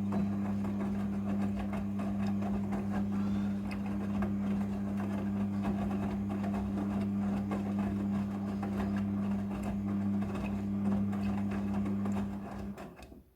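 Front-loading washing machine running on a prewash: a steady low motor hum with a fine rattle over it, dying away near the end.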